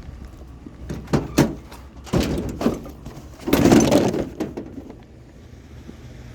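Scrap being handled: a few knocks and clatters, then a louder, noisy crash about three and a half seconds in, over a low steady rumble.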